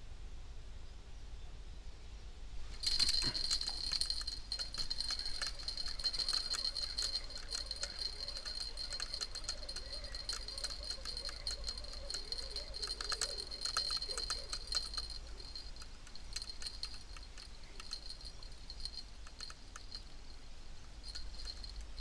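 Spinning fishing reel being cranked steadily, a fast clicking whir with a high whine that starts suddenly about three seconds in, as a small perch hooked during the retrieve is reeled in.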